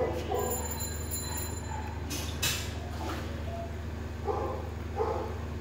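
A steady low hum with a sharp clatter about two seconds in, then a dog barking twice near the end.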